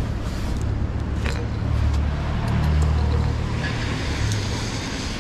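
A car passing on the wet street: its engine rumble swells to a peak a few seconds in and fades, with tyre hiss on the wet road. A few light crinkles and clicks from a plastic camera rain cover.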